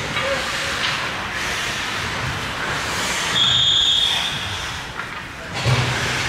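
Ice hockey rink noise: skates scraping and hissing on the ice. There is a short, high referee's whistle blast about three and a half seconds in and a sharp thud near the end.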